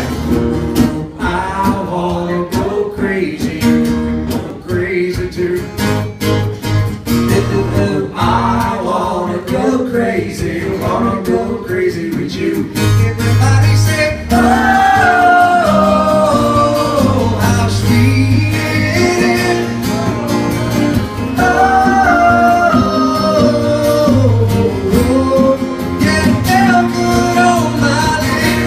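Live acoustic country song: a male lead vocal over strummed acoustic guitars and a djembe hand drum.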